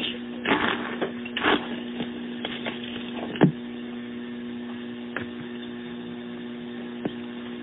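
Steady electrical mains hum on a narrowband recording, with a few short sounds in the first three and a half seconds, the last and loudest about three and a half seconds in.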